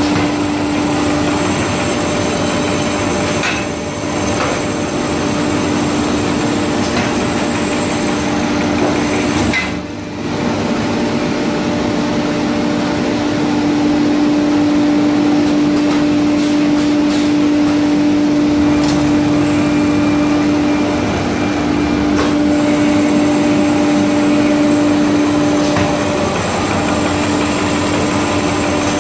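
Automatic twist brush-making machine running: a steady hum with one constant tone over busy mechanical noise, dipping briefly about ten seconds in.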